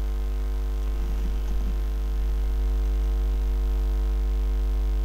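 Steady electrical mains hum with a stack of constant overtones from a faulty microphone, which the uploader says makes this noise all the time.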